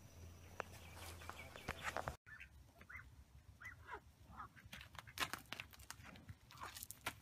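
Short, high chirping calls from young fowl, some gliding downward in pitch, repeating through the second part, mixed with several sharp clicks and taps.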